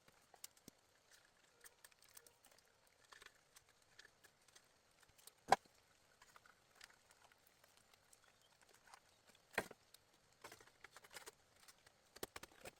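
Sparse light clicks and knocks, with one sharp knock about five and a half seconds in and another near ten seconds.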